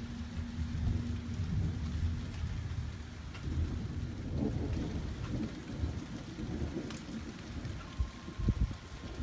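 Distant thunder rumbling low and unevenly as a storm approaches, with a faint steady hum in the first two seconds.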